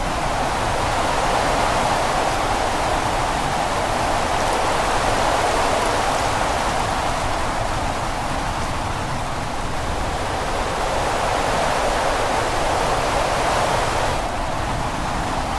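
Steady rushing noise of a snowstorm ambience sound effect, swelling and easing slowly, with a slight drop near the end.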